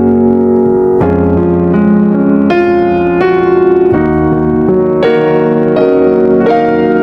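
Background piano music: a steady melody of struck notes and chords.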